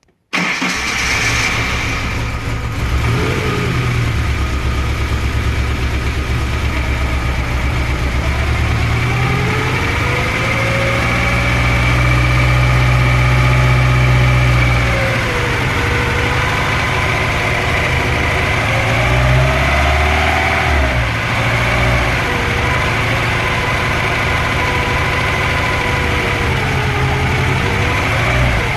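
VAZ-2103 inline four-cylinder engine running with a knock. The engine speeds up and holds the higher revs for several seconds near the middle, then revs briefly once more. The knock first seemed to be a loose valve, but a teardown found a destroyed piston.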